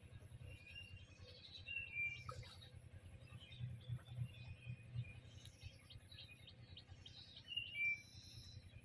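Small birds chirping faintly, short high chirps in a cluster about two seconds in and another near the end, over a steady low rumble.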